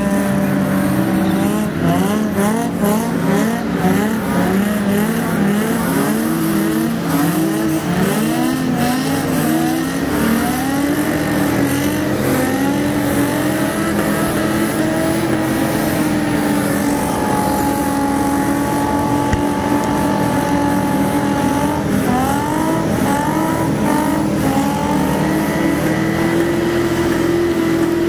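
Several drift cars' engines revving hard at once during burnouts and donuts. In the first half the revs rise again and again in quick pulses; later the engines are held at steady high revs, under a haze of spinning-tyre noise.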